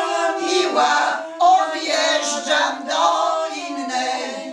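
A small group of women singing a Polish folk song unaccompanied, holding the long, drawn-out notes of the song's closing phrase, which fade out at the end.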